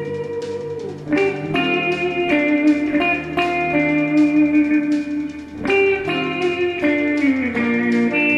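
Guitar music: plucked notes that ring on, with a few notes sliding down in pitch in the second half.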